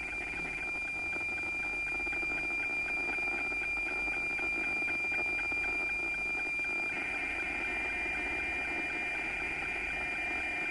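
Meteosat weather-satellite picture signal received on a radio and heard through its speaker: a steady high tone with a fast, even ticking and hiss. This is a picture being sent line by line. About seven seconds in, the sound around the tone grows brighter and harsher.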